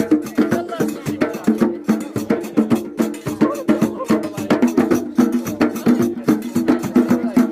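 Moroccan music: fast, regular clacking hand percussion over steady sustained low notes.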